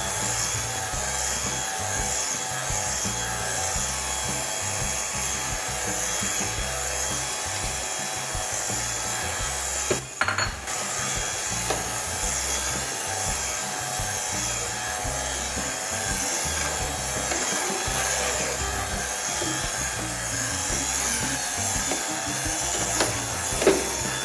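A utensil scraping steadily round a pot as a thick white sauce is beaten to cool it and work air into it, with a couple of brief knocks, one about ten seconds in and one near the end.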